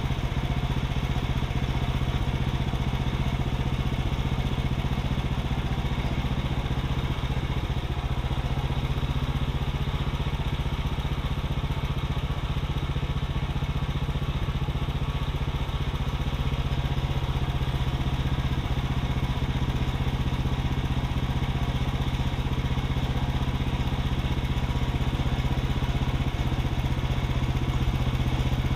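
Woodland Mills HM126 bandsaw mill's gas engine running steadily under load as the saw head travels along a Douglas fir log, sawing through it.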